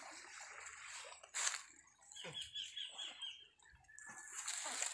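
A bird singing a quick trill of repeated high notes about two seconds in, with a brief rustling noise a little before it.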